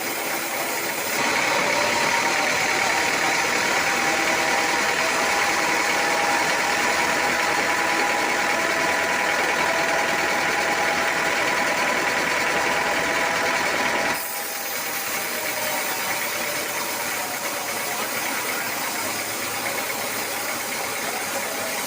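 Sawmill machinery running steadily. From about a second in until about fourteen seconds in it is louder, with a steady whine on top, then it drops back to the lower running sound.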